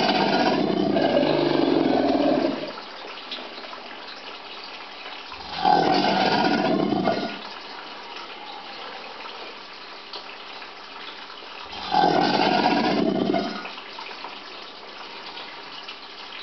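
American alligators bellowing in a mating-season bout: three bellows, each lasting a second or two, about six seconds apart, the first already going at the start.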